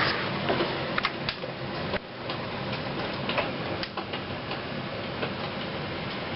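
Heavy thunderstorm rain falling as a steady hiss, with irregular sharp ticks of hits on a hard surface. The level dips suddenly about two seconds in.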